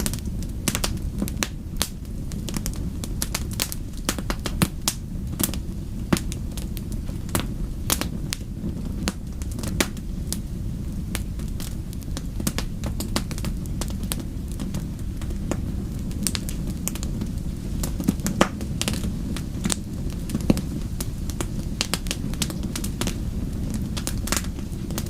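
Wood fire burning in a fireplace: a steady low rumble of flames with frequent, irregular sharp crackles and pops.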